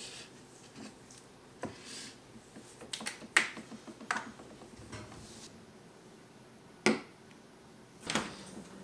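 Bottles and containers being handled on a kitchen cabinet shelf: a series of sharp plastic clicks and taps, the loudest about a third of the way in and another about three-quarters of the way through. Near the end, a refrigerator door is pulled open.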